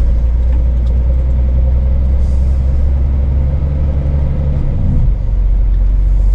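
Scania S500 truck's V8 diesel running at low speed with a steady low drone, heard from inside the cab. The engine note changes about five seconds in.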